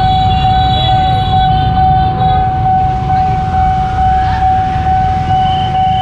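Railway level crossing warning alarm sounding one steady high tone that does not change pitch, over a continuous low rumble of vehicles.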